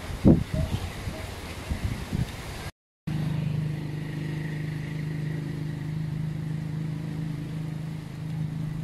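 A few dull low thumps, then after a short break a steady engine hum that holds one low pitch.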